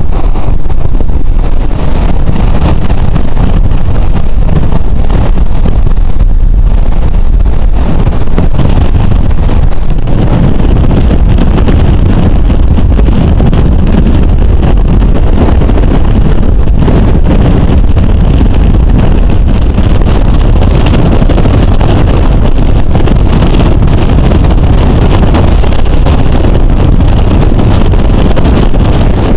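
Hurricane wind buffeting the microphone, a loud, steady, deep rumble that does not let up, with surf and storm surge washing underneath.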